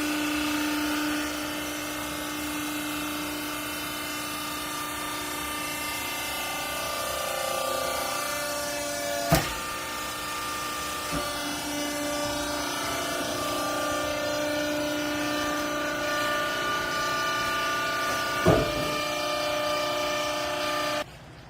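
Hydraulic baler's electric motor and pump running with a steady whine whose pitch shifts as the load changes, with two sharp metallic clanks, stopping abruptly near the end.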